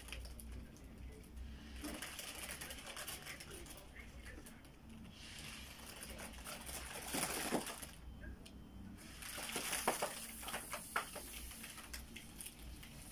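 Thin foil of a deflated rose-gold letter balloon crinkling and rustling as it is handled, in three stretches of a few seconds, with breath blown into the balloon near the end. The balloon has a hole and won't hold air.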